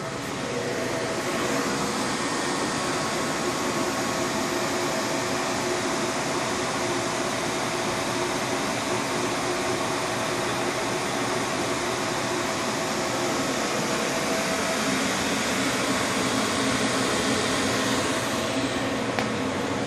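Cooling fans of rack-mounted network switches, routers and servers running: a steady whir with a few faint steady tones in it.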